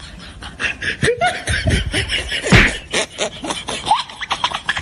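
A man laughing and making wordless vocal noises in short, quick bursts, with the loudest burst about halfway through.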